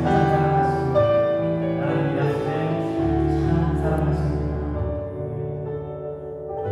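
Live worship band playing a slow, soft passage: sustained keyboard chords over bass notes that change about every two seconds.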